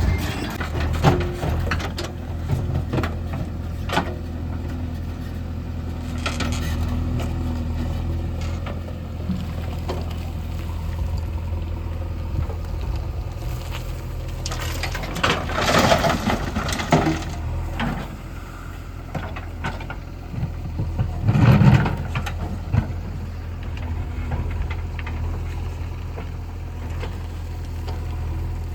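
Heavy diesel engine running steadily, with two louder noisy surges about halfway through and again about three quarters through.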